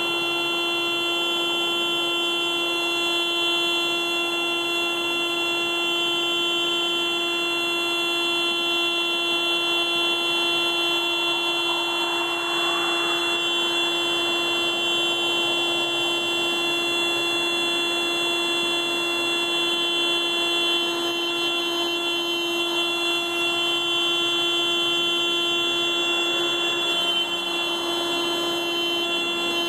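Car alarm going off continuously as one steady, unbroken horn-like tone at a constant pitch, with no pulsing or change.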